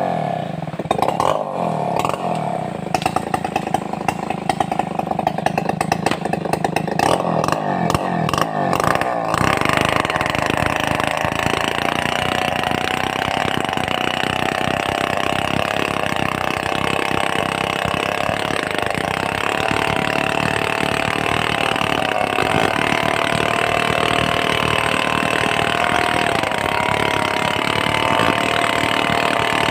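Stihl 070 two-stroke chainsaw running with a nearly worn-out chain: for about the first nine seconds the engine runs unevenly, its pitch rising and falling, then it is held at steady high revs for the rest.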